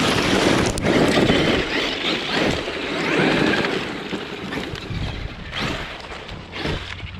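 Electric Traxxas X-Maxx RC monster truck driving over a loose gravel lot on belted tires, the tires churning the gravel. The noise swells while the truck is close in the first few seconds, then fades as it drives off.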